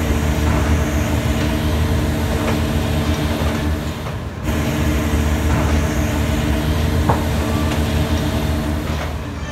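Large diesel engine of a heavy earthmoving machine running steadily with a deep rumble. It cuts out briefly about four seconds in and then picks up again.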